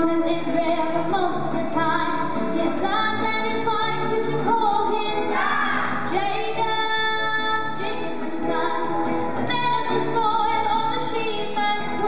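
Singers, female voices leading, performing a musical-theatre song over instrumental backing.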